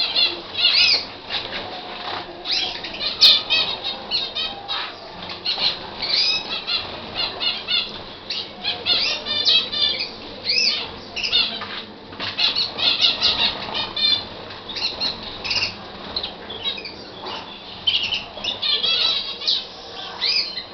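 Canary singing: a long run of fast trills and quickly repeated high chirping notes, broken by short pauses, with a single sharp click about three seconds in.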